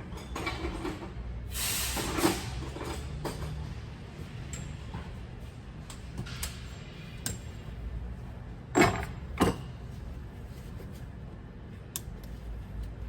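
Several separate knocks and clunks over a steady low hum; the loudest is a pair of clunks about half a second apart, past the middle.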